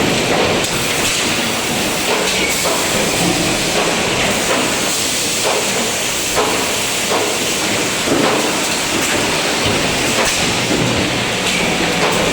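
Automatic multihead spot welding machine running: a steady hiss with occasional knocks.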